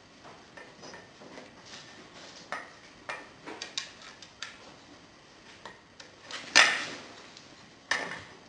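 Small metal clicks and clinks of a hex key and bolts on a battery mounting plate being fitted to a bicycle down tube. There is a louder clink about six and a half seconds in and another near the end.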